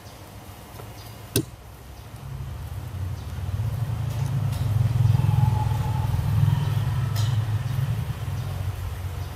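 Low engine rumble of a passing motor vehicle, building from about two seconds in to its loudest midway and easing a little toward the end. A single sharp click comes about a second in.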